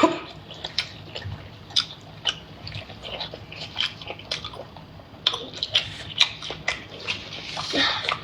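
Close-miked eating sounds of someone chewing sea snail meat: irregular wet smacks and clicks of the mouth, several a second.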